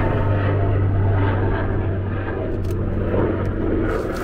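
Steady low engine drone, with a few light clicks in the second half.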